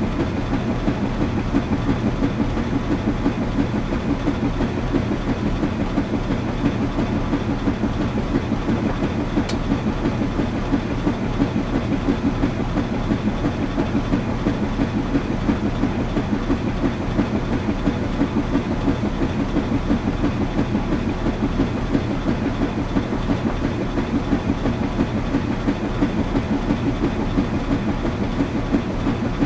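Washing machine running steadily: a low mechanical rumble with a fast, even pulsing.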